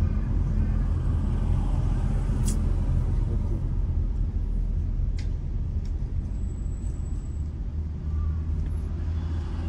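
Steady low drone of a car's engine and tyres heard from inside the cabin while driving in city traffic, with two faint clicks.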